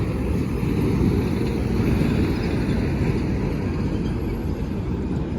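Steady low rumble of wind and vehicle road noise, with no clear engine note or distinct events.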